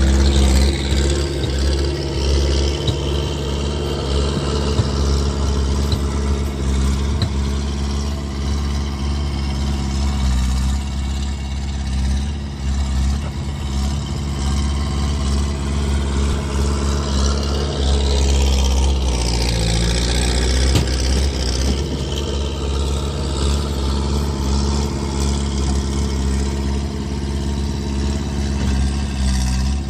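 Skid steer engine running loud without a proper exhaust. About two-thirds of the way through, the engine speed briefly drops, then picks back up.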